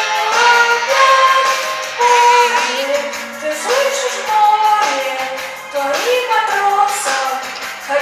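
A solo voice singing a pop song over a backing track, holding long notes with a wavering note near the middle.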